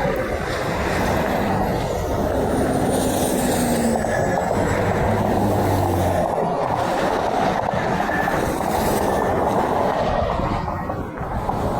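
Steady roar of heavy interstate traffic, the tyres and engines of semi trucks passing close by, with no horn blast standing out.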